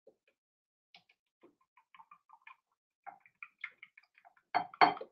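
Silicone-headed whisk beating eggs in a glass bowl: scattered faint light clicks, then near the end a run of loud knocks of the whisk against the bowl, about four a second.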